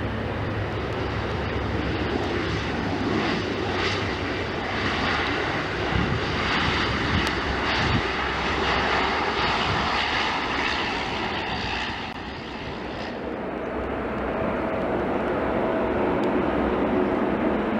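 Airliner engines running with a steady roar that dips briefly past the middle, and a faint steady whine joins in the last few seconds.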